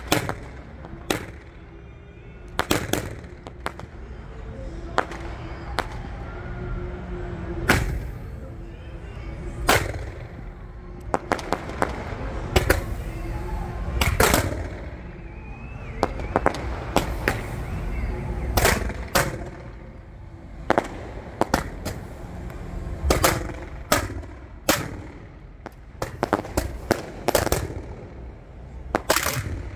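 Close-proximity 1.4G fireworks being fired in quick succession: a string of sharp reports, sometimes several a second, with a steady low background noise between them.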